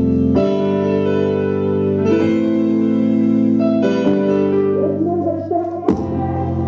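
Music for the dance routine: long held keyboard chords that change about every two seconds, then a busier passage and a sharp hit near the end.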